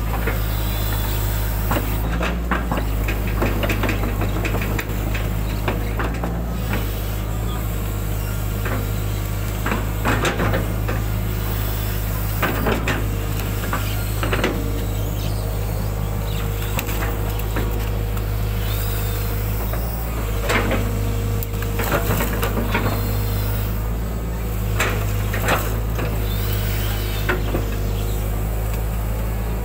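Hitachi hydraulic excavator's diesel engine drones steadily, heard from inside the cab, with repeated clunks and knocks as the boom and bucket scoop mud from a ditch and dump it.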